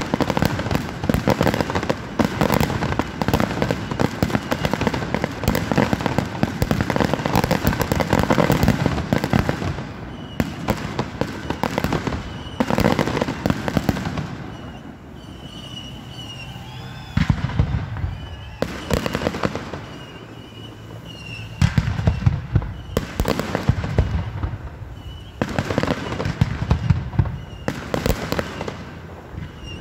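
Aerial fireworks in a finale barrage: a rapid, dense run of shell bursts and bangs for about the first ten seconds, then bursts coming in clusters with short quieter gaps between them.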